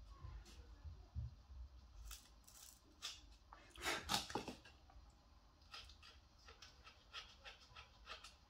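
Faint scratching of a pen-type tool's tip drawn across the dry, hard skin of a gourd in short strokes, the loudest run about four seconds in, with a few low bumps in the first two seconds.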